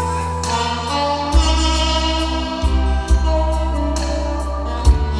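Saxophone playing a slow Korean trot melody live over a backing track with a steady bass line and a drum beat ticking about twice a second.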